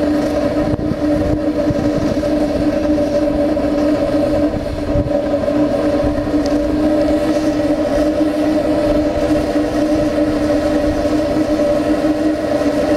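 Gas burner flame firing into a 4-inch stainless steel pipe at a level 3 burn: a steady roar with a strong, even hum that does not change.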